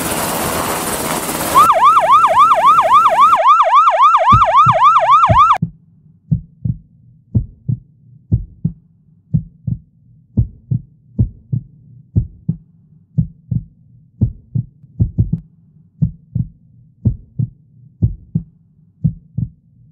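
Helicopter rotor noise for a moment, then a loud, fast-warbling electronic yelp siren for about four seconds, cut off sharply, then a steady heartbeat of paired low thumps to the end.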